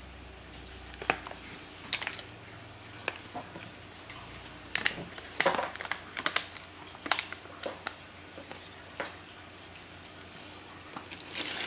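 A cat rooting through crinkle-cut paper shred in a cardboard box, with scattered short rustles and crackles.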